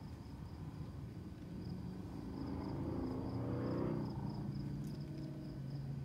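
Crickets chirping in a steady pulsing trill, while a low droning sound with a few pitches swells up from about two seconds in and fades away again a couple of seconds later.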